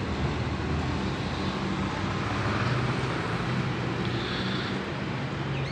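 A steady low engine hum under an even wash of outdoor background noise, with no distinct events.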